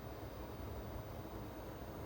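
Faint, steady room tone: low background hiss with no distinct events.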